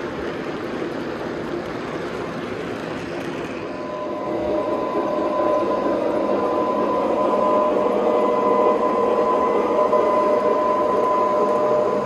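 Three-rail O gauge model train running on the layout, a steady rolling rush of wheels on track. About four seconds in it gets louder and a steady whine of several pitches comes in and holds.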